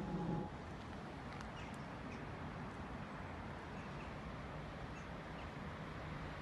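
An approaching electric train's hum and whine stops abruptly about half a second in. Then a steady outdoor background hiss follows, with a few faint, short bird chirps.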